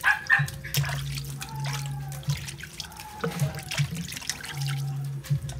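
Water running and splashing in a steel basin as raw chicken pieces are rubbed and turned by hand, with sharp knocks and splashes as the meat moves against the bowl. A low hum comes and goes.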